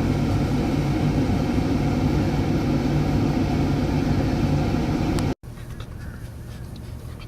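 A steady low mechanical drone with a low hum in it. It cuts off suddenly about five seconds in, leaving a much quieter background.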